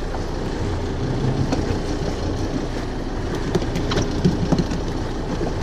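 Boat engine idling steadily, under the wash of wind and water. A few light knocks come about four seconds in.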